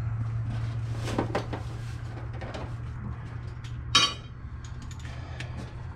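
Metal hand tools clinking and clattering against engine parts: several light clinks, with a louder ringing clink about four seconds in, over a steady low hum.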